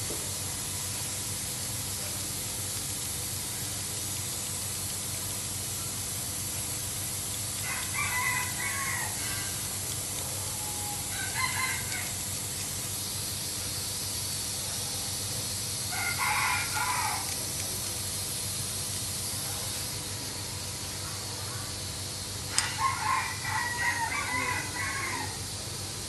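Poultry calling in short bursts a few times, the last a quick run of several calls, over a steady hiss.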